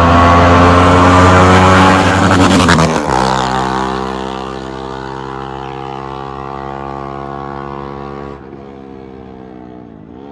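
KTM RC 390's single-cylinder engine through a loud aftermarket dual-barrel exhaust, passing at high revs. Its pitch and loudness drop sharply about three seconds in as it goes by. It then settles to a steady, quieter note as it rides away.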